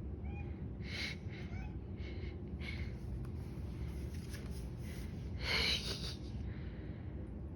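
Cats making short chirping calls while chasing a laser pointer dot, the excited hunting chirp that cats give at prey they can't reach. The calls come one at a time, with a louder call about two-thirds of the way through.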